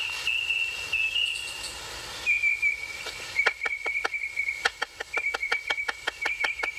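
Insects trilling steadily at a high pitch, shifting slightly lower about two seconds in. From about three seconds in, a rapid run of short, sharp chirps comes in at roughly four to five a second.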